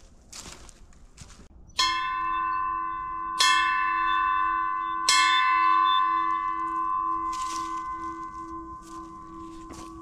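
A metal bell struck three times, about a second and a half apart, each strike ringing on over the last. The hum wavers as it slowly fades.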